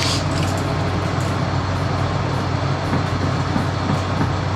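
A steady low mechanical hum with an even rushing noise over it, as from a machine running continuously.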